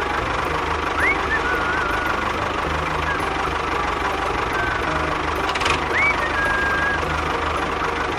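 Small engine of a DIY mini tractor running steadily with an even low pulsing. A few short high chirps sound over it about a second in and again near six seconds.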